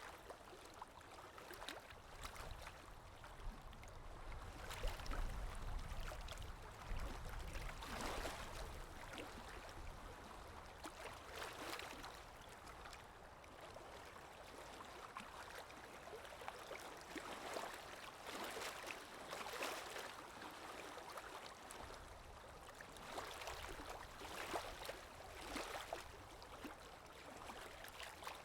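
Lake waves breaking and washing onto the shore, a continuous rush of water that surges every few seconds, with a low rumble about five seconds in.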